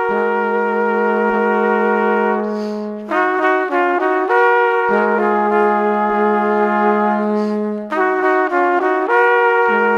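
Background instrumental music: long held chords in slow phrases over a steady low note, which drops out briefly twice.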